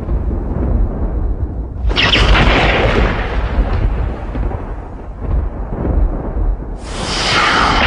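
Thunderstorm: a continuous deep rumble of thunder, broken by two sharp, loud cracks about two seconds in and again near the end, each fading off over a few seconds.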